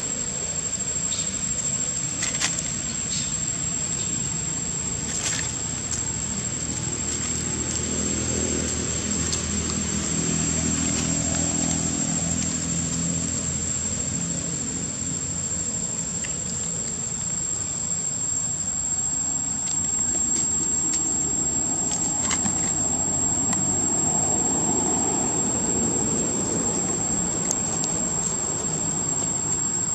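Insects droning steadily in one high-pitched tone, with a low rumble that swells twice, around a third of the way in and again near the end.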